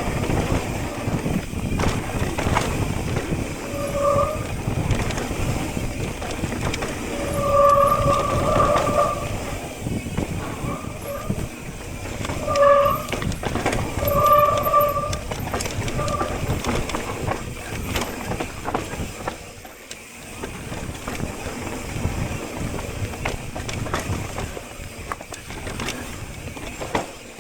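Mountain bike riding down a rough dirt trail: a continuous rumble and rattle of tyres and frame over the ground, with sharp knocks throughout. Brief squealing tones come several times in the first half, and the rumble eases for a moment about two-thirds through.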